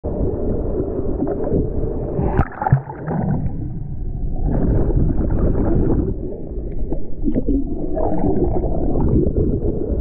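Waves and water sloshing around a camera held in the surf, muffled, with almost no high sound. There is a sharp knock and a brief drop a little over two seconds in.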